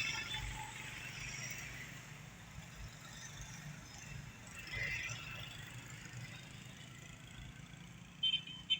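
Construction machinery engine running with a steady low rumble, with brief higher-pitched squeals at the start and about five seconds in, and a short high tone near the end.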